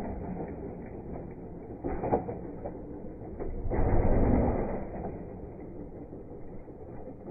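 Dirt bike engine blipped in short bursts, loudest about two seconds in and again around four seconds in, as the bike is hopped between concrete blocks. A few sharp knocks from the tyres landing come with the bursts.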